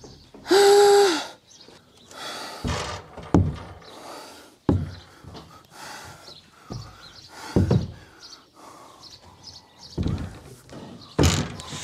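A string of separate knocks and thuds, the last ones as a 250-litre plastic water tank bumps through the doorway and onto the floor about ten seconds in. A short sound with a steady pitch about half a second in.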